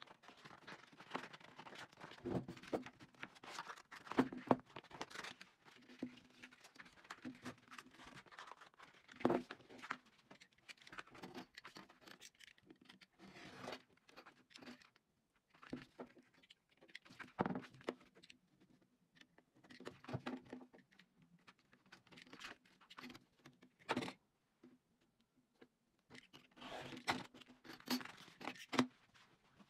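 Sandpaper being handled, cut with a utility knife and torn into strips on a workbench: irregular rustling, scraping and tearing with scattered taps, over a faint steady hum.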